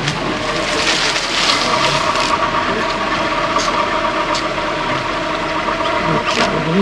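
Vehicle engine running steadily, with a few light clicks in the second half.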